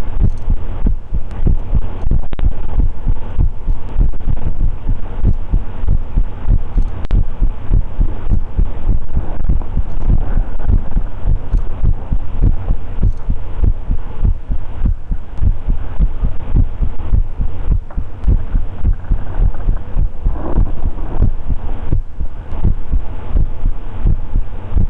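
A man's heartbeat, loud, as a steady, regular run of low beats.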